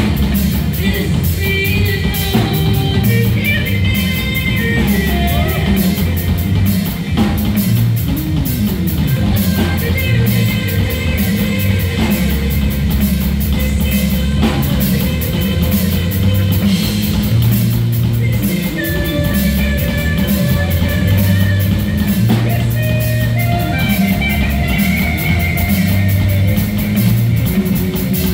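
Live band playing rock-style music, with an electronic keyboard and a drum kit keeping a steady beat, loud and unbroken throughout.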